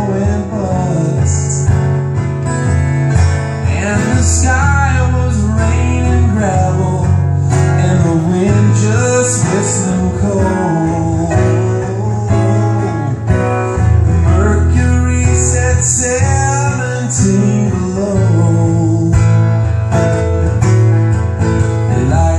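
Live acoustic guitar and piano playing a song, with a singing voice carrying the wavering melody over sustained low notes.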